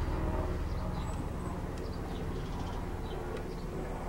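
Helicopter flying over, a steady low drone slowly fading. Faint light ticks of a pick working the pins of a lock cylinder.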